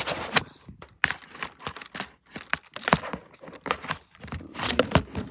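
Handling noise from an iPad being gripped and moved against a plastic RC car body, close to its microphone: a dense, irregular run of sharp crackles, scrapes and taps.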